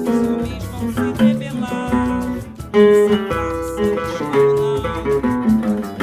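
Seven-string nylon-string guitar (violão de sete cordas) playing samba solo: plucked single notes and chords ringing over low bass notes, the chords changing every beat or two.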